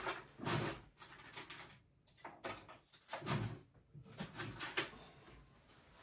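Irregular handling noises: a string of short rustles and light knocks, someone rummaging for something, with the loudest about half a second in and again near the middle.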